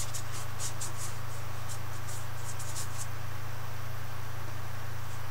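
A paintbrush scratching across canvas in a quick series of short strokes that stop about three seconds in, over a steady low hum.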